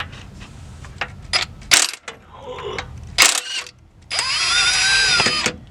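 Handheld power tool running for about a second and a half near the end, its motor pitch rising and then falling. Before it come a few sharp metal clicks and knocks of tools on the engine.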